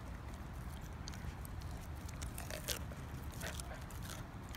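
Dog biting and chewing a whole raw mackerel, irregular wet bites and clicks of teeth, busiest in the middle.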